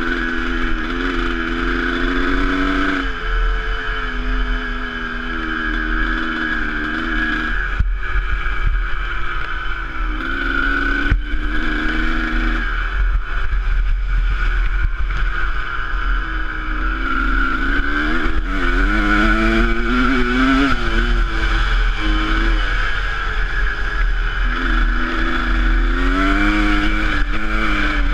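Enduro dirt bike engine being ridden off-road, its revs rising and falling again and again as the throttle opens and closes, over a steady low rumble, with a couple of sharp knocks partway through.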